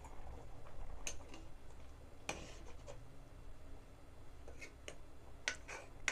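Metal spoon stirring a simmering curry in a metal kadai, with light scrapes and clicks against the pan, sparse at first and coming closer together near the end.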